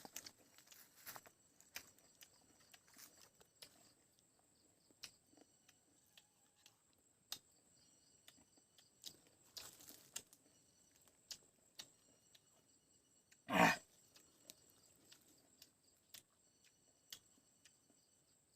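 Close mouth sounds of someone eating lemon: faint chewing and wet sucking clicks, with one louder mouth sound about two-thirds of the way through. Insects chirp faintly in short, repeated trills behind.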